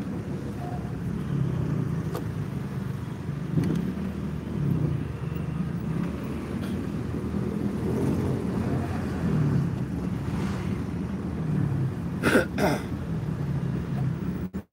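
Car engine and road noise heard from inside the cabin while driving slowly, a steady low hum that rises and falls a little. Two short knocks come about twelve seconds in.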